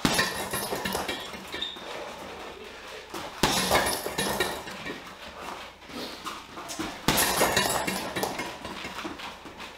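Boxing gloves punching a hanging Leone heavy bag in combinations, with the bag clattering on its mount. The loudest flurries start at the beginning, about three and a half seconds in, and about seven seconds in.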